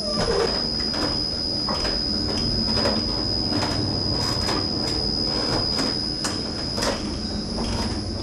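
Windmill machinery running: a steady rumble with irregular knocks and clacks from the turning gearing and millstones.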